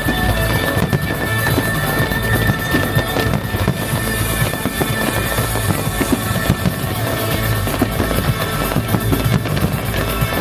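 Music from a fireworks show's soundtrack with fireworks going off over it: repeated bangs and crackling bursts of aerial shells mixed in with the music.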